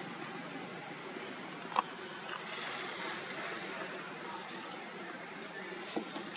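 Steady outdoor background noise with no clear source, broken by two short sharp clicks, a louder one about two seconds in and a fainter one near the end.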